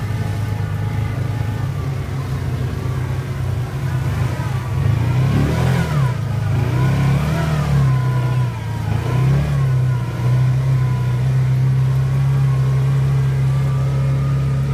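Side-by-side off-road vehicle's engine running under the rider, its pitch rising and falling several times around the middle as the throttle changes, then holding steady toward the end.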